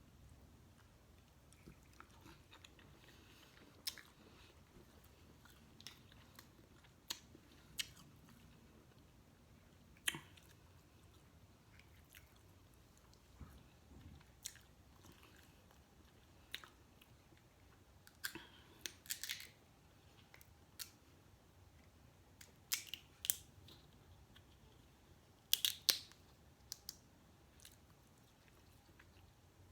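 A person chewing and eating seafood boil, with scattered sharp clicks and cracks. These come in quick clusters in the second half.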